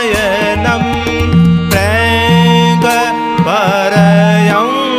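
Haveli Sangeet devotional kirtan: a voice sings long, gliding notes without clear words over held steady notes and tabla strokes.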